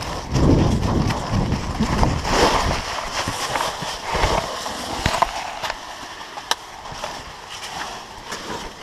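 Hurried footsteps and the rustle of gear, loudest and most irregular in the first three seconds, then quieter, with a few sharp clicks about five and six and a half seconds in.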